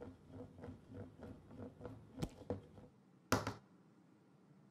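Plastic hula hoop spinning on its rim on a wooden floor, tapping about three times a second as it wobbles, then clattering down flat about three and a half seconds in.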